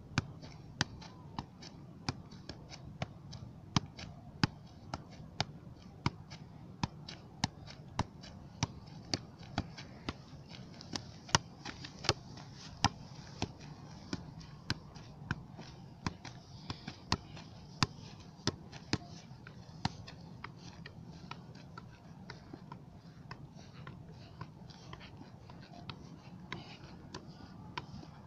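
A football being juggled: a steady run of sharp thuds, about two a second, as the ball is kept up off the foot, knee and head.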